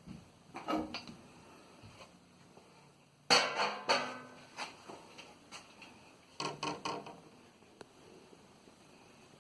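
Metal tools and fittings clanking and clinking against each other in three short clusters, the loudest a little over three seconds in, with brief metallic ringing: hand work on a water heater's pressure relief valve and its pipe.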